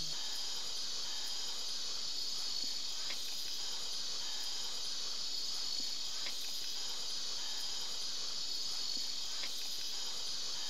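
A steady chorus of insects, a dense, even high-pitched drone that holds at one level, with a few faint ticks.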